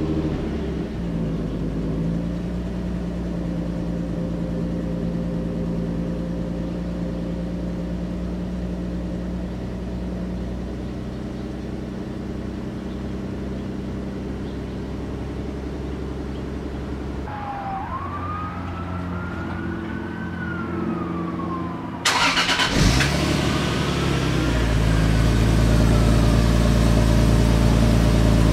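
Lexus IS300's 2JZ-GE inline-six idling just after a cold start on its stock header, running steadily. About 22 seconds in, the sound jumps to a louder, deeper idle.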